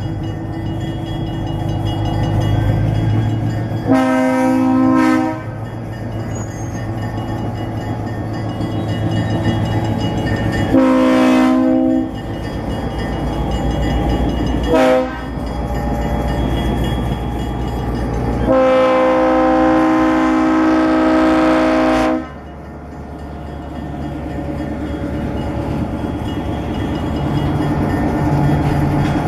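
EMD SW900 switcher locomotive sounding its horn in the grade-crossing pattern, long, long, short, long, the last blast the longest, over the steady rumble of its diesel engine as it rolls past with tank cars.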